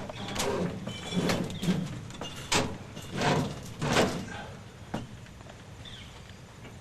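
Scrapes and knocks from a heavy furnace cabinet being shoved and slid into position, a run of separate strokes with a sharp knock about two and a half seconds in, then quieter.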